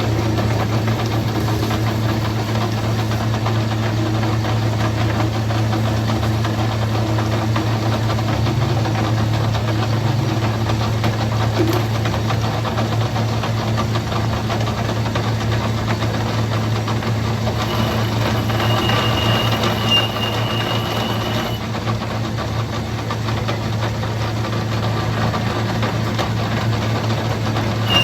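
A motor-driven machine running steadily with a constant low hum. A thin high whine joins it for a few seconds past the middle.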